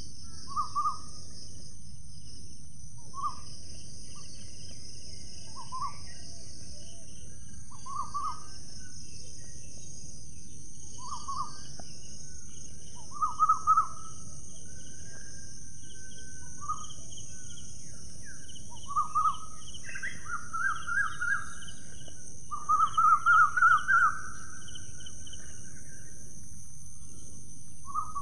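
Birds calling: a short call repeats every two to three seconds, then runs of rapid notes come near the end and are the loudest part. Underneath is a steady high hiss and a low background rumble.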